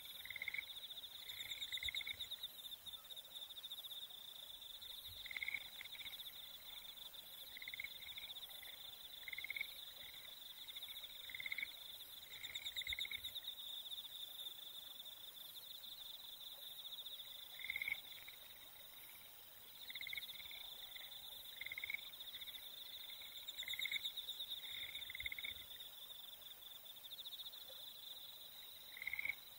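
Faint insect chorus: a steady, rapidly pulsing trill, with short lower chirps coming in little groups every second or two. The trill breaks off for a moment a little past the middle.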